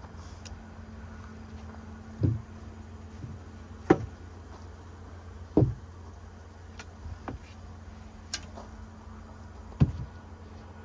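About five sharp knocks and thuds a second or two apart, over a steady low hum.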